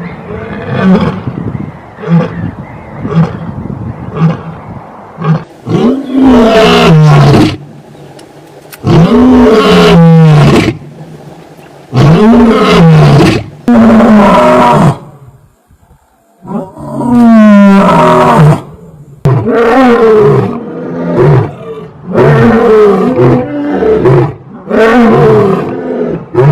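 Lion roaring: a series of short low grunts at first, then a run of loud, full roars one after another, with a brief pause about two-thirds of the way through.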